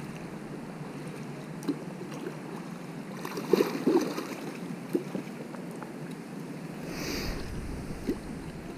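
Steady rush of flowing creek water, with a few scattered knocks in the middle and a short hiss near the end.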